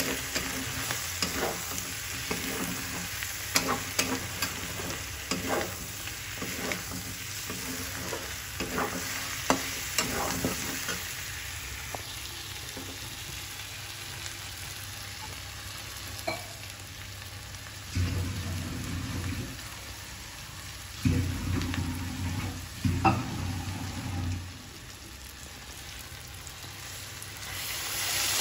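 Chicken and onions frying with a steady sizzle in a steel kadai, turned with a long metal spatula that scrapes and clinks against the pan, the strokes most frequent in the first ten seconds or so. Two stretches of low rumble come in the second half, and the sizzle swells near the end.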